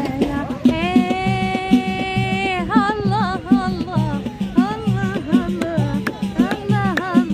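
Background music: a singer holds one long note, then sings winding, ornamented phrases over a steady drum beat.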